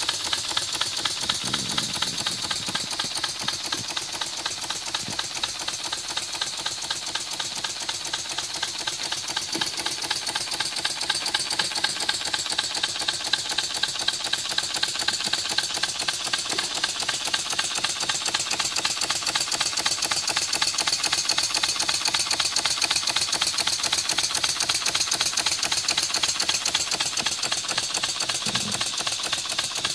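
Titan horizontal steam engine running steadily, with a rapid, even beat of exhaust and moving parts over a hiss of steam.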